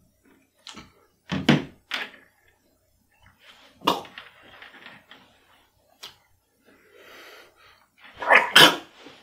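A man slurping a canned quail egg off a plate and trying to gulp it down whole. It is a string of short slurps, gulps and throat noises, with a cluster of louder ones near the end as he struggles to swallow it.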